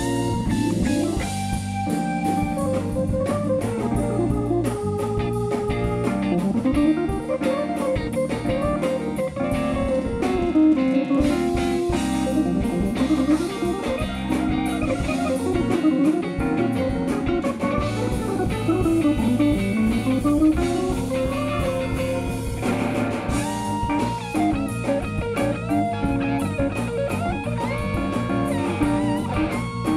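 A live four-piece band playing an instrumental tune on drum kit, electric bass, electric guitar and keyboards, with a melodic line winding up and down over a steady groove.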